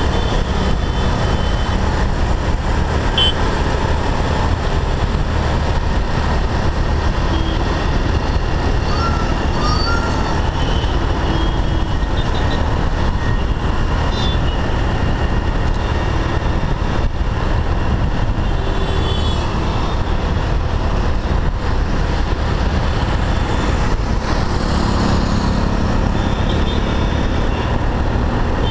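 Honda Navi's small single-cylinder engine running at a steady cruise in traffic, mixed with loud, steady wind rush on the microphone. A few faint short tones from other traffic come and go.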